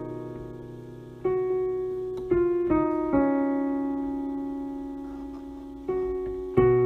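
Slow, quiet piano music: a few notes or chords struck at irregular moments, each left to ring and fade away.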